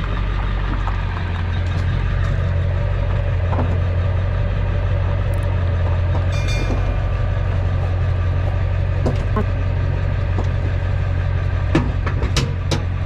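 Diesel pickup truck engine running steadily at low revs while the truck is backed slowly under the trailer. A few short knocks come near the end, with a brief high metallic ring about halfway through.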